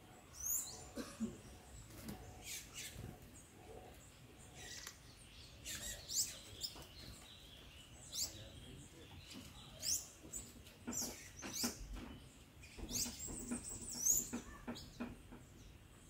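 Songbirds giving short, high, upward-sweeping chirps every few seconds, mixed with light taps.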